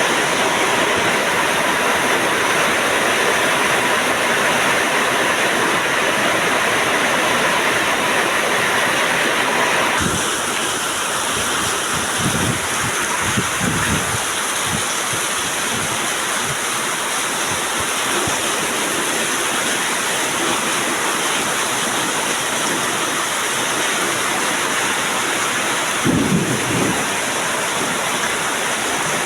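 Heavy rain pouring in a steady, dense hiss, with low rumbles of thunder about halfway through and again near the end.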